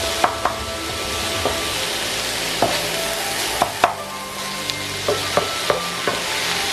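Cauliflower stir fry sizzling steadily in a non-stick pan while a wooden spatula stirs it. The spatula knocks against the pan about nine times at uneven intervals, and several of the knocks leave a short ring.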